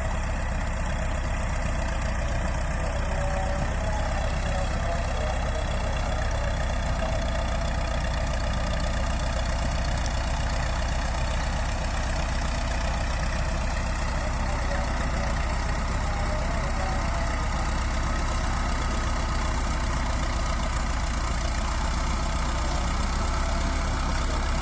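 Bulldozer's diesel engine running steadily at an even level, with no changes in speed.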